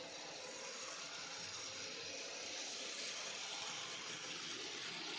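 N gauge model train running along the track: a steady, hiss-like whirr of motor and wheels on rail that grows slowly louder as it approaches.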